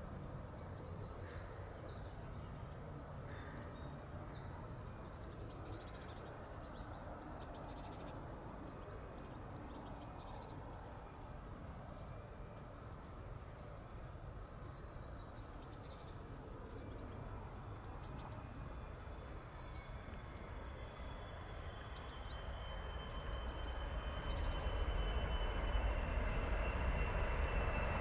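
Emirates Boeing 777-300ER's GE90 jet engines heard from beside the runway as it lands: a distant low rumble that swells loudly about three-quarters through, with a thin steady whine coming in. Small birds chirp on and off throughout.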